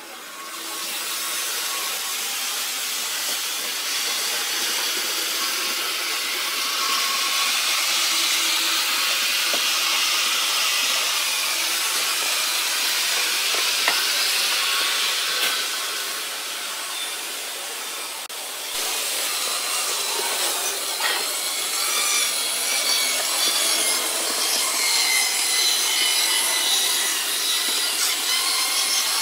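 Model trains running on the layout's track: a continuous high rushing rattle of small wheels on rail. About two-thirds of the way in the sound shifts and wavering whines of the small locomotive motors come through.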